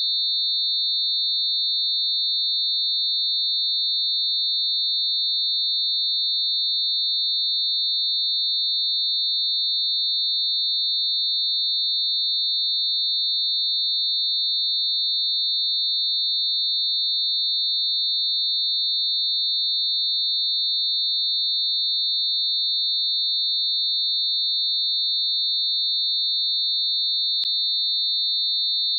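Synthesized tone of a few sine frequencies mixed close together around 4,000 Hz, making a steady, unchanging high-pitched whine. A faint click sounds once near the end.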